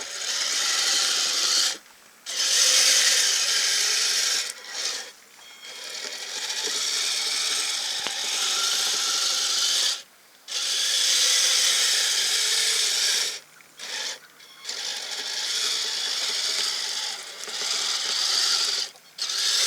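Kyosho Blizzard FR radio-control snowcat's electric drive and tracks running in bursts, a mechanical whirring clatter that cuts out and starts again several times as the throttle is let off and reapplied.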